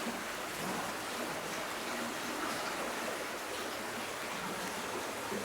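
Steady rushing of water: an even, unbroken hiss with no engine or other distinct events in it.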